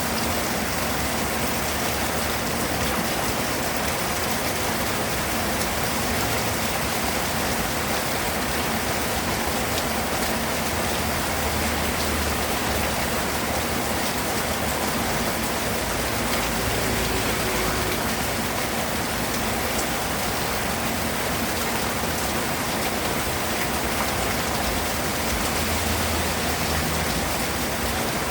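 Steady rain falling: an even, continuous hiss of drops on surfaces.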